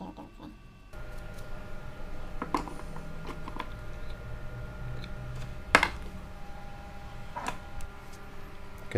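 Small parts of a Kenzi Aica spinning reel's handle being handled: a few sharp clicks and taps, the loudest about six seconds in, over a steady low hum.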